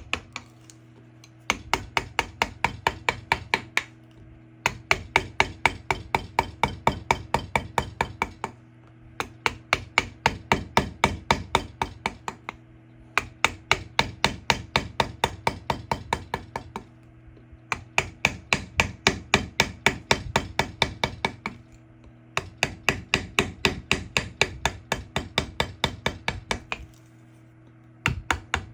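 Carving chisel driven by rapid hammer blows to rough out a wood carving, about five strikes a second in runs of several seconds with short pauses between.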